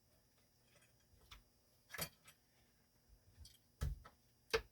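A few light clicks and taps of hand work at a refrigerator door hinge, with faint ticks at first and three sharper clicks near the middle and end, as a metal hinge brace and screws are handled against the plastic hinge.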